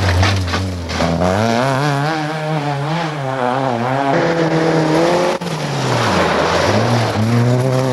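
Rally car engines revving hard as the cars race past at close range on a gravel stage. The pitch drops as one car goes by, then climbs and wavers as the cars accelerate through the gears. There is a brief break about five and a half seconds in.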